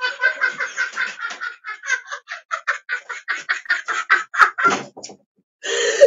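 A man laughing hard: a long run of quick, breathy pulses that gradually get further apart and fade, followed near the end by a short burst of noise.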